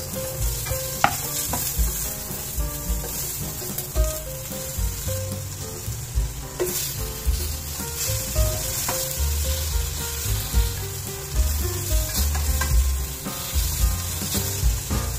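Onion and tomato sizzling as they sauté in a stainless steel pot, stirred with a slotted spatula that scrapes and knocks against the pot now and then.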